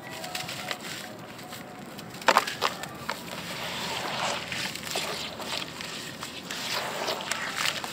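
Hands crushing crumbly white chalk-like blocks in a basin of water. A few sharp cracks come about two seconds in as the blocks break, then gritty sloshing and squelching as the crumbs are worked into wet paste.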